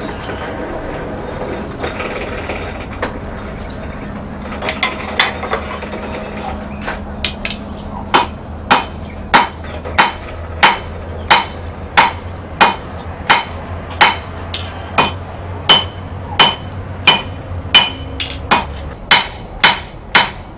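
Blacksmith's hammer striking hot steel on an anvil, drawing the metal out thinner: a few light taps, then from about eight seconds in a steady run of blows, about three every two seconds, each with a short metallic ring.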